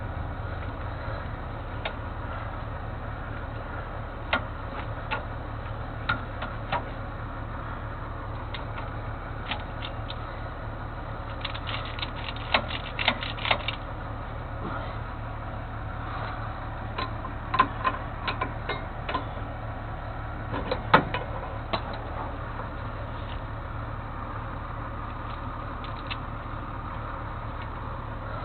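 Truck engine running steadily, with scattered sharp clicks and knocks over it: a quick run of clicks about twelve seconds in, another cluster a few seconds later, and a louder knock about twenty-one seconds in.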